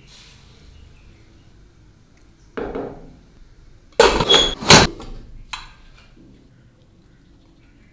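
Pressure cooker pot and lid handled with a few sharp metal clanks and knocks: one about two and a half seconds in, then two loud clanks less than a second apart around four seconds in, with a brief ring, and a lighter knock after.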